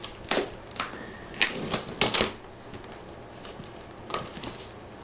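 Cardboard box being cut open with a knife and pulled apart: a string of short, sharp scrapes and rips, most of them in the first two and a half seconds and two more a little after four seconds.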